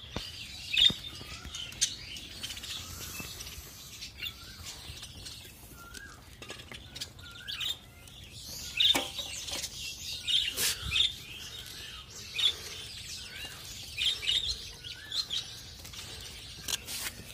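A flock of budgerigars chirping and warbling, with short repeated calls throughout. A few sharp clicks and knocks come in among them.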